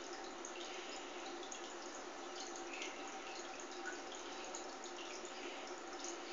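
Steady trickle of water with small drips and splashes scattered through it.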